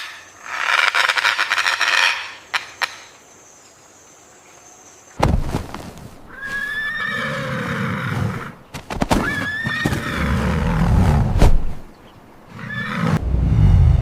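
Horse whinnying: two high neighs a few seconds apart with lower rumbling between and after, preceded near the start by a short breathy blowing sound.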